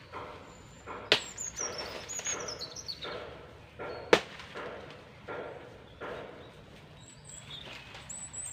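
Machete chopping and slashing at banana plants and dry banana leaves. There are two sharp chops, about a second in and about four seconds in, between repeated rustling swishes of dry leaves. Just after the first chop a bird calls with a quick falling series of chirps.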